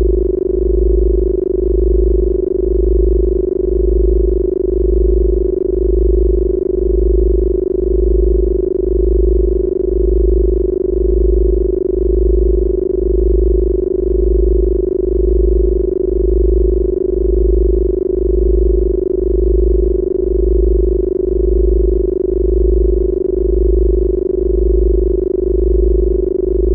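Electronically generated sine-tone drone of the kind sold as healing 'Rife frequencies': a strong, steady mid-pitched hum with fainter higher tones, under a deep low tone that pulses on and off a little more than once a second.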